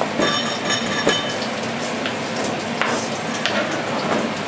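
Steady sizzling of food frying in a pan, with a few taps of a chef's knife on a plastic cutting board as chives are chopped.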